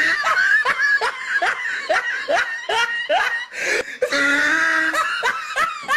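A person laughing hard in quick, rhythmic bursts, about three or four a second, with a longer held stretch a little past the middle.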